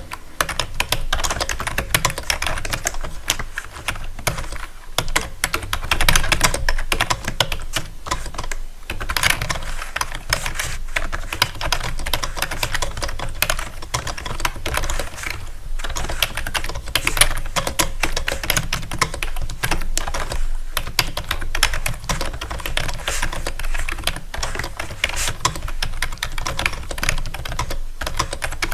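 Rapid, continuous clicking taps, many a second and at a steady loudness, with a few short pauses.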